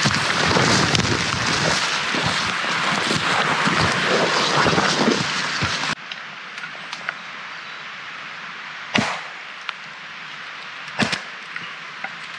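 Footsteps swishing and knocking through wet leaves and undergrowth close by, loud and busy. It then drops off sharply to a quieter forest, in which a fallen branch is struck twice with a cutting tool, two sharp chops about two seconds apart, with a few light ticks of wood between.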